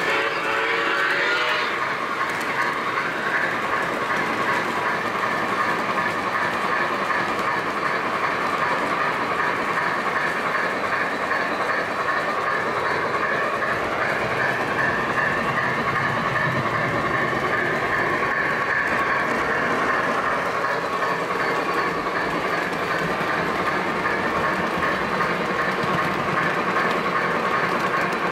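O gauge three-rail model train running along the track, a steady rolling and clicking of small wheels on the rails with the motor's hum, heard from a flat car in the train. A short gliding tone sounds in the first couple of seconds.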